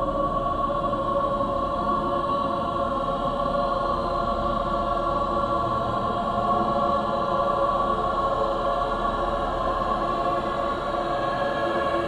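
A haunting choir singing long, held notes together in a steady chord, with no words; the chord shifts slightly near the end as new notes come in.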